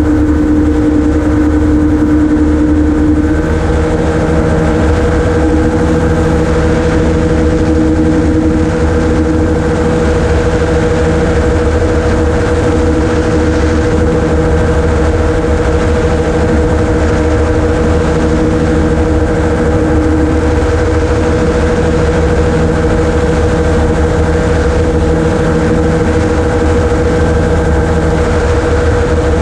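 Amphibious gyroplane in flight, its engine and propeller running steadily at cruise power: a loud, even drone with a strong low hum.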